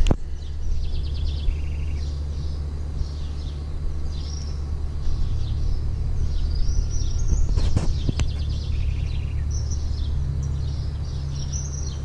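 Small birds chirping, with a few short rapid trills, over a steady low rumble.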